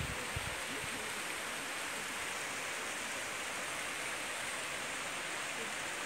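Steady rushing of a shallow, rocky mountain stream flowing over stones, with a few low thumps in the first second.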